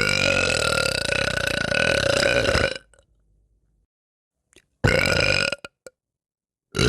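A woman burping: one long, drawn-out burp lasting nearly three seconds, then after a pause a shorter burp, with a third beginning right at the end.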